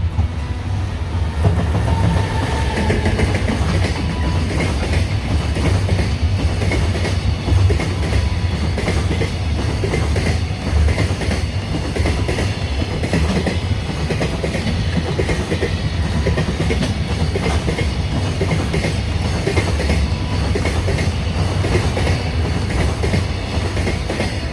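Electric freight train running past: a steady low rumble of locomotive and wagons on the rails.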